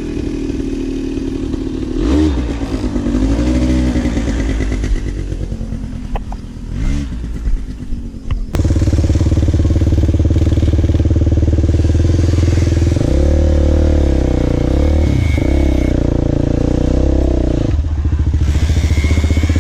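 Off-road bike engine revving up and down several times, then from about halfway through running loud and steady at higher revs.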